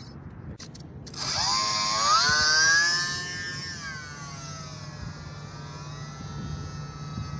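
Electric motor and propeller of an E-flite J-3 Cub RC plane throttling up for takeoff. A whine rises in pitch about a second in and is loudest for the next two seconds, then holds steady, dropping a little in pitch and level as the plane climbs away.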